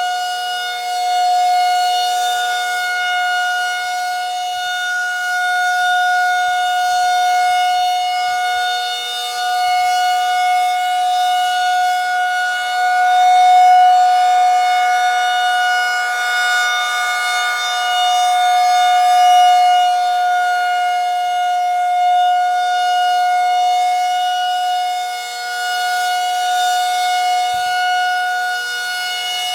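Outdoor warning siren sounding a steady, unbroken tone at a constant pitch, its loudness slowly swelling and easing.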